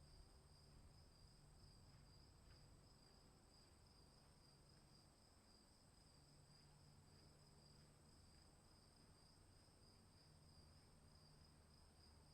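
Faint, steady insect trilling at two high pitches that hold without a break, over a low background hum.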